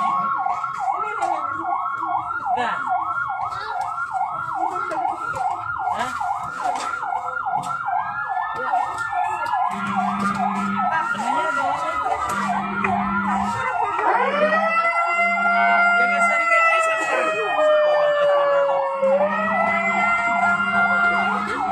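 Emergency vehicle sirens: a fast yelping siren of about four cycles a second, joined about nine seconds in by a second siren with slow rising and falling wails, which is louder in the second half. A low steady tone sounds on and off alongside.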